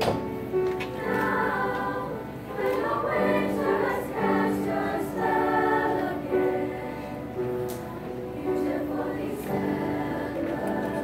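Girls' choir singing, with long held notes.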